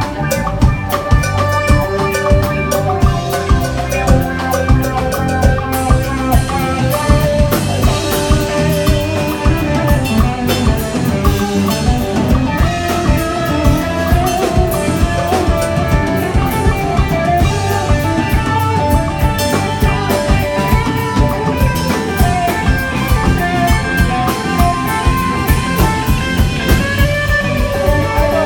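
Live rock band playing: electric guitars, bass guitar and drum kit, with a steady, driving drum beat.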